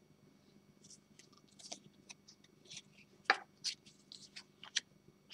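Small cardboard oracle cards being handled and laid down onto piles: faint, irregular rustles and soft taps, the sharpest a little past the middle.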